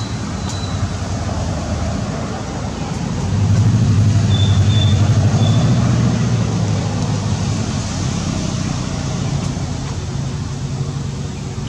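Low rumble of a motor vehicle's engine, swelling about three seconds in and easing off a few seconds later, as a vehicle passing would. A few short high chirps sound over it in the middle.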